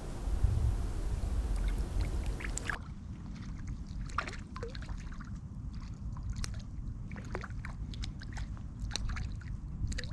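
Wind rumbling on the microphone at the riverside, with many short clicks and chirps scattered through. Partway in, a steady hiss cuts off abruptly.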